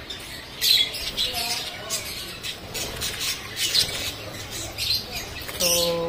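Caged budgerigars chattering: a steady run of short, high chirps.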